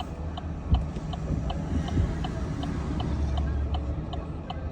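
Car turn-signal indicator ticking evenly, about two and a half clicks a second, over the low rumble of the car driving. A single thump comes just under a second in.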